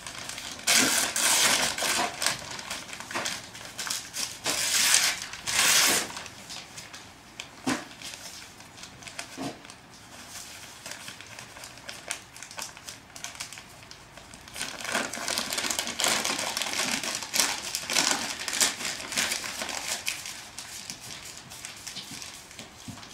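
A sheet of newspaper rustling and crinkling as it is wrapped by hand around a cloth-wrapped torch. It comes in two long spells of loud handling, one in the first few seconds and one in the second half, with quieter paper rustles and small clicks in between.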